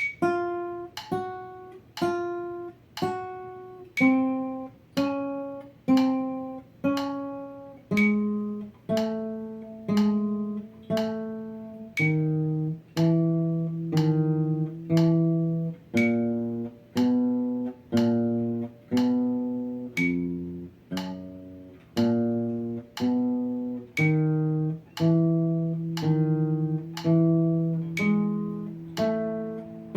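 Acoustic guitar playing single plucked notes one per second in a finger exercise, the notes stepping in pitch every few beats. A metronome set to 60 beats per minute keeps time, with a short high accent click about every fourth beat.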